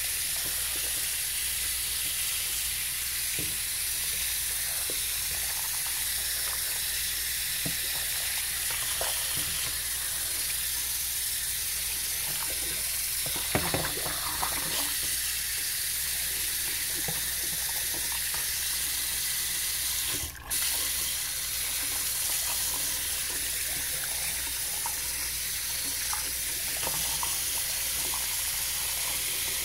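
Tap water running steadily into a sink while a circuit board is washed, with a few light knocks about halfway through and a brief break in the flow a little later.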